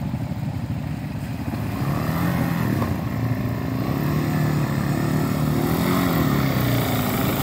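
Off-road vehicle engine running under throttle. It starts as a low rumble, then about two seconds in its pitch rises and falls as the rider works the throttle.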